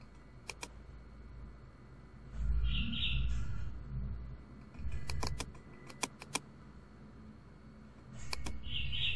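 Computer mouse clicks, single and in quick groups, with two short high-pitched chirps about two and a half seconds in and again near the end.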